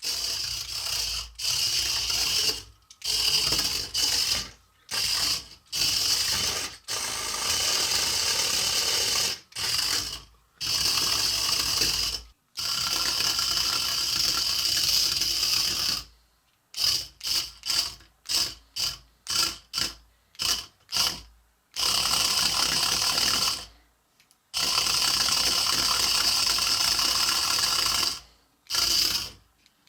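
Hexbug Fire Ant remote-control robot's small drive motors and plastic gears running in spurts as it is driven, giving a ratcheting gear noise. It starts and stops several times, with runs of a few seconds and, past the middle, a quick string of short bursts about twice a second.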